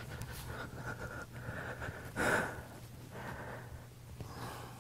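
Quiet breathing of an aerialist working on the silks, with one louder breath about two seconds in, over a steady low room hum.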